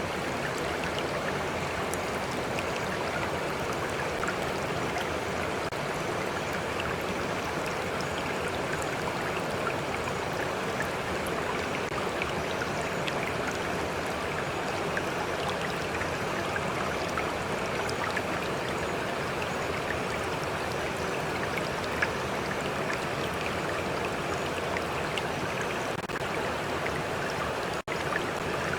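Steady rushing and trickling of a flowing stream, even throughout, with a momentary dropout in the sound near the end.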